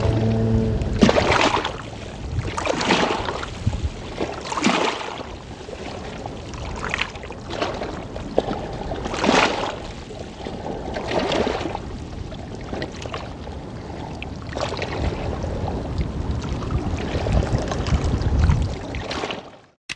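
Choppy, wind-driven floodwater sloshing and splashing, swelling up about every two seconds, with wind rumbling on the microphone.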